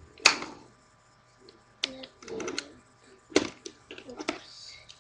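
Hands handling a plastic toy on the floor: an irregular run of sharp clicks and clatters with short scuffling sounds between them.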